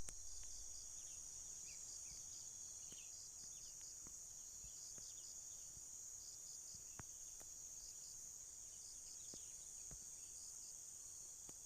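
Faint insect chorus: a steady high-pitched drone with a pulsing chirp that repeats in short groups, over a few short high chirps and faint clicks.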